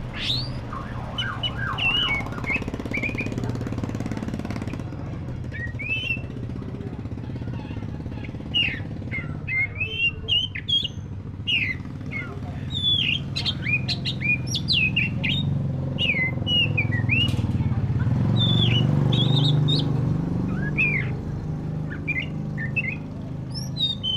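Oriental magpie-robin of the black-breasted kacer form singing: a varied run of short whistled and chirping notes, many of them sliding up or down, in quick bursts with brief gaps. A steady low rumble runs underneath and swells about three-quarters of the way through.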